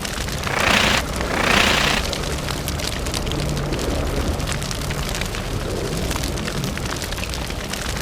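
Fire sound effect: two whooshing flame bursts, one about a second in and the next just after, then steady crackling fire.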